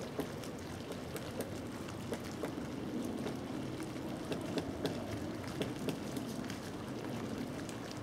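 Pileated woodpecker pecking and chipping at tree bark: a dozen or so irregular, sharp taps, bunched a little past the middle, over a steady rushing background hiss.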